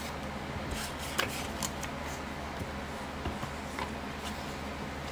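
Paper bills and a clear plastic binder envelope being handled, with rustling and light crinkling clicks as the notes are pulled out and fanned for counting, over a steady low hum.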